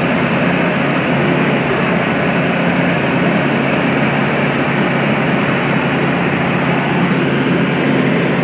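Small plane's engine droning steadily in flight, with rushing airflow, heard from inside the cabin.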